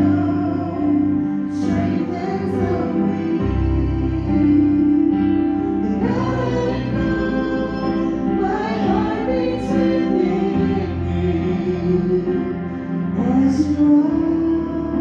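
Contemporary Christian worship song: singing over instrumental accompaniment with sustained low notes.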